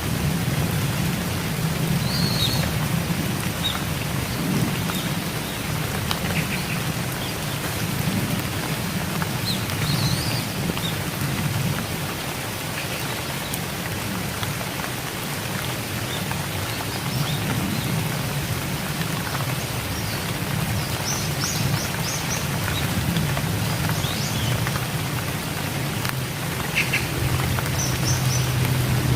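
Steady rain falling, an even hiss with a low rumble underneath. A few short bird chirps come through it, around 2 s, 10 s, 21 s and 28 s in.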